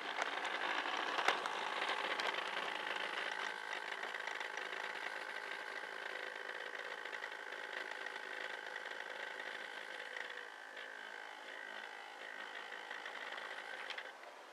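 Model Virgin class 57 locomotive running slowly along the track: a steady motor whir with light clatter of wheels on rail, easing off as it slows to couple to the DVT and stopping near the end.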